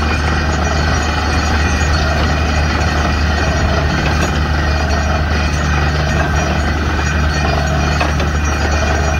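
DTH borewell drilling rig and its air compressor running steadily: a loud, even engine drone with a hiss over it. The compressor is labouring, its RPM pulled down by the pressure of the water struck in the bore.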